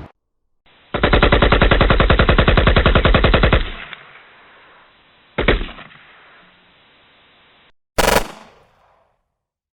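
Machine gun firing a rapid sustained burst of about two and a half seconds. It is followed by a single gunshot with a trailing echo, and near the end by another sharp single shot.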